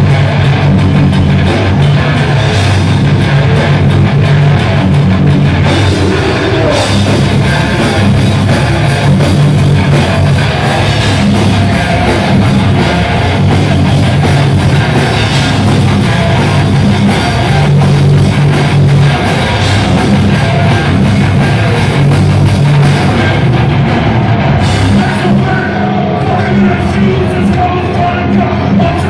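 Live heavy hardcore band playing loud and steady: distorted electric guitars, bass guitar and a drum kit.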